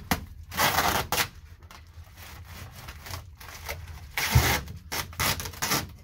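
Foil tape being pulled off its roll in several short ripping bursts, the loudest about four seconds in, and rubbed down by gloved hands over crinkly foil bubble insulation on a duct.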